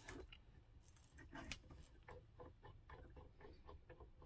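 Near silence with faint light metal ticks, about three a second, as an aluminium bottle-adapter fitting is threaded by hand onto an Air Venturi Avenger air rifle's front fitting.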